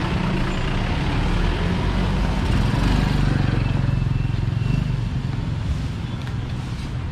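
Street traffic: a motor vehicle engine running close by, its low rumble swelling about three seconds in and easing off toward the end.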